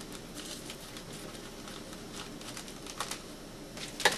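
Faint ticks and light clicks of small parts and tools being handled on a workbench, with a sharper click about three seconds in and a loud knock at the very end.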